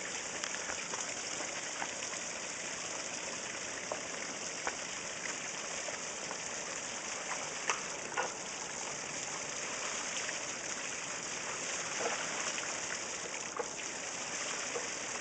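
Steady splashing and trickling of pond water with scattered small drips.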